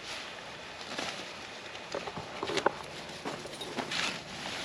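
Irregular light knocks and rustling, with one sharp click a little past the middle, over a steady hiss: the fabric and frame of a pop-up screen shelter being handled and pulled out.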